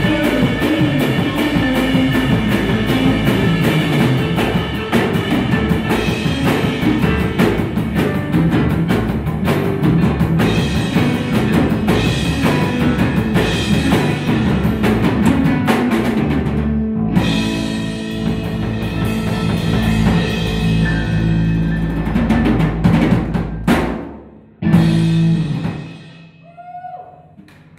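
Live three-piece band with a drum kit playing the end of a song. Drums run busily under the chords, then comes a stretch of held chords with drum hits. A last hit about 25 seconds in rings out and dies away.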